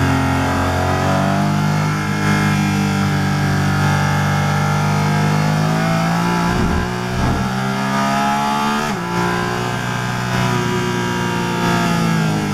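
Porsche Cayman GT4 RS Clubsport's four-litre flat-six racing engine, heard from inside the cockpit, pulling hard under acceleration. About nine seconds in, an upshift from fourth to fifth gear cuts the revs briefly, and then the engine climbs again.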